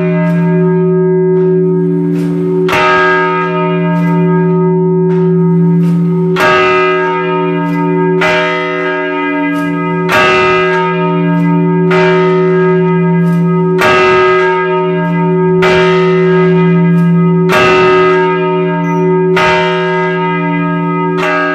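A single church bell swinging in its frame, its clapper striking about every two seconds, with louder and softer strokes taking turns. Each stroke leaves a long ringing hum that carries on under the next.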